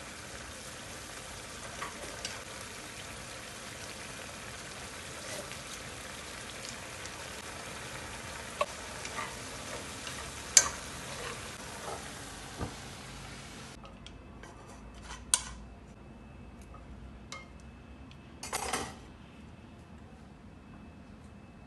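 Vegetables sizzling steadily in a hot wok as they are stir-fried with wooden chopsticks, with sharp clicks of the chopsticks against the pan. About 14 seconds in the sizzle stops abruptly, and a few light clicks and a short clatter follow.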